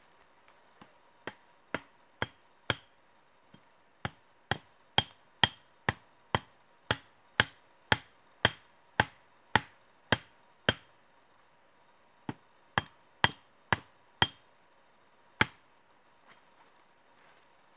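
Machete blade striking wood: a long series of sharp blows, about two a second, in runs with short pauses, each with a slight ring.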